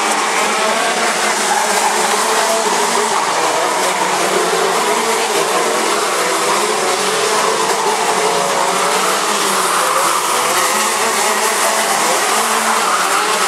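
Several KZ125 shifter karts' 125 cc two-stroke engines racing at high revs, their overlapping pitches rising and falling as the karts accelerate and brake through the corners.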